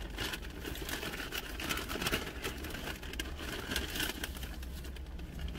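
Paper takeout bag rustling and crinkling as a hand rummages in it to pull out food, a dense crackle of small clicks, over a steady low hum inside the car.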